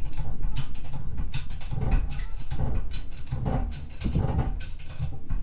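Hydraulic shop press being pumped by hand to press a new bearing into place: a series of creaking, clunking pump strokes.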